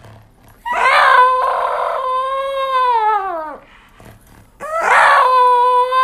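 Large plush carrot toy squeaking as it is squeezed: long, steady, high squeals, each falling in pitch at the end as the air runs out. A rough rustle comes as each squeeze begins, and the squeals come about once every three seconds.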